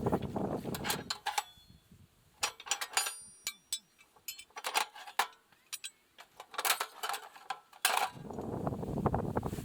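Scattered clinks and knocks of camp cookware and utensils being handled, one with a brief metallic ring about three seconds in. There is dense rustling handling noise in the first second and again near the end.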